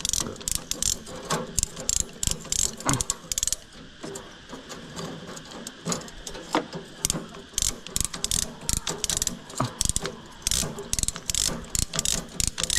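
Ratchet stainless steel band tensioning tool being cranked, its pawl clicking in quick runs of about four clicks a second as it pulls a steel strap tight. The clicking thins out for about two seconds around four seconds in, then picks up again.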